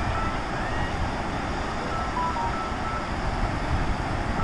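Steady rushing outdoor noise, heaviest in the low end, with a few faint short high-pitched chirps or beeps about halfway through.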